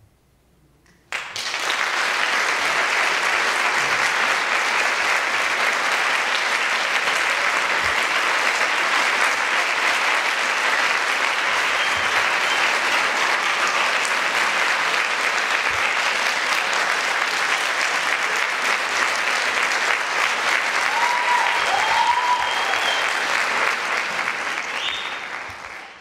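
Audience applause breaking out suddenly about a second in after a held silence at the close of a concert band piece, then holding steady and dense, with a few brief cheers near the end before it fades out.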